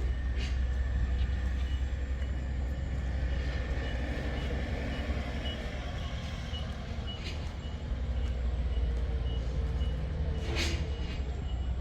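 Rice combine harvester's engine running steadily, with a short electronic beep repeating at an even pace, typical of a reversing or warning alarm. A sharp click near the end.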